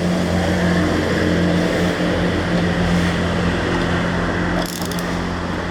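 A steady, loud motor hum runs throughout, with a short crackle near the end.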